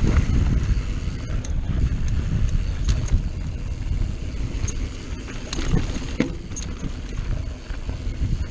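Mountain bike rolling fast down a dirt singletrack: heavy wind rumble on the microphone over the tyres on the dirt, with scattered clicks and rattles from the bike over bumps.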